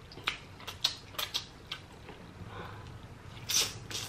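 Close-miked eating of spicy noodles: a run of short wet mouth clicks and smacks while chewing, then a louder slurp about three and a half seconds in.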